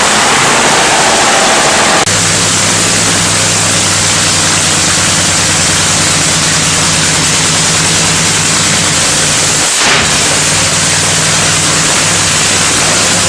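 Supercharged nitromethane-burning Top Fuel Funny Car engines warming up, very loud, in clips cut together. The first two seconds have a harsher, higher-pitched burst. The sound then switches abruptly to a steady, low-pitched idle, broken by another abrupt cut near ten seconds.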